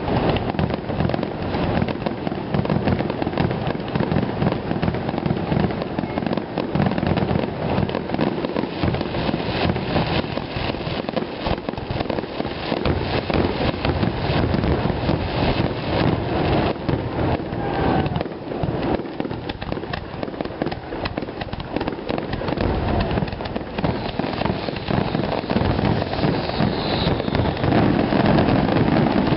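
Fireworks finale: a dense, unbroken barrage of aerial shell bursts, booms and crackling, one bang running into the next.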